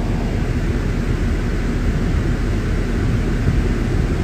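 Steady road and engine noise inside the cab of a moving Ram pickup truck, an even rumble with hiss on top and no distinct events.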